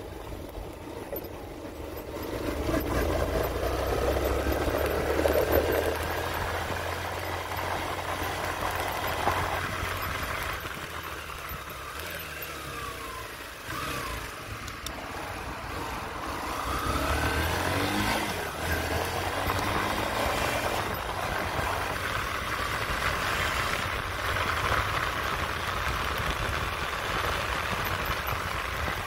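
Yamaha Factor motorcycle's single-cylinder engine running under way, its revs rising and falling several times, with road and wind noise.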